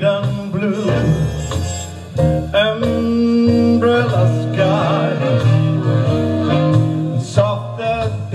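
Background music: a country-style song with singing over guitar accompaniment.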